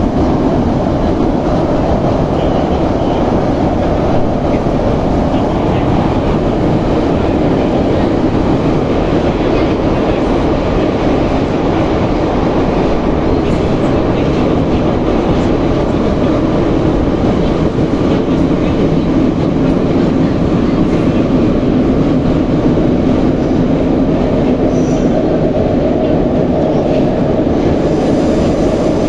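Moscow Metro 81-717/714.5A subway train running between stations, a loud steady rumble of wheels on the rails.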